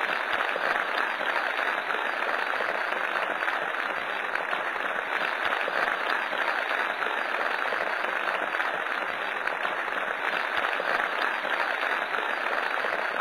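Theatre audience applauding steadily, the cast on stage clapping along, at the close of a stage play.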